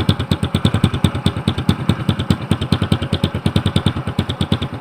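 SYM Bonus SR110 underbone's single-cylinder four-stroke engine idling through an open, straight-through 'kalkal' (chicken pipe) exhaust made from plain tubing. It runs steadily and loudly, as a rapid, even popping of exhaust pulses, about a dozen a second.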